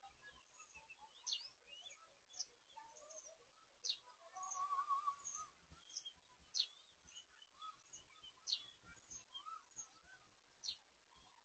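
Birds calling: short, sharp high notes every second or so, scattered lower chirps, and a warbling call about four seconds in that lasts just over a second.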